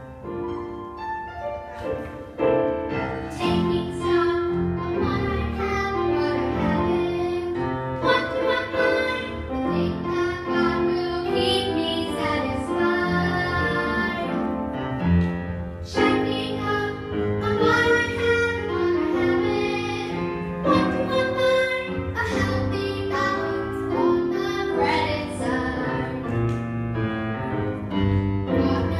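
A girl singing a song into a microphone over a musical backing track, the music growing louder about two and a half seconds in.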